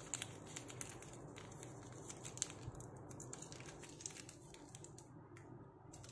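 Thin baking-type paper crinkling and rustling as hands fold it into a wrapper: quick small crackles, thick at first and thinning out near the end.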